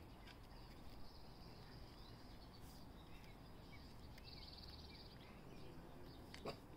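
Faint back-yard ambience: scattered short bird chirps over a steady high insect drone, with a single sharp click near the end.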